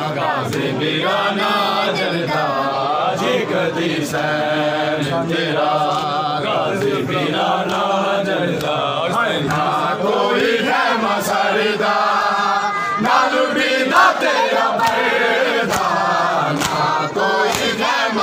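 A crowd of men chanting a mourning lament in unison, a Shia noha for Muharram, the melody rising and falling in long repeated phrases.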